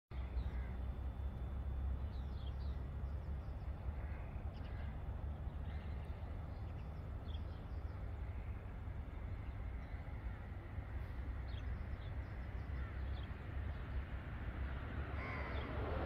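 Outdoor ambience: a steady low rumble with faint, scattered bird chirps over it. Near the end a louder rushing noise starts to build.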